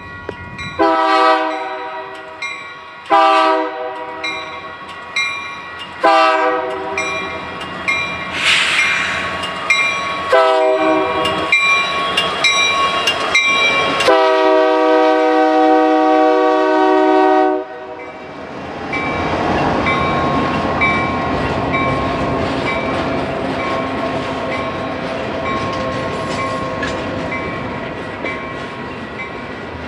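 Freight locomotive air horn sounding a series of chord blasts, the last one held for about three seconds before it cuts off sharply. Then the steady rumble and rattle of the locomotives and double-stack container cars rolling past.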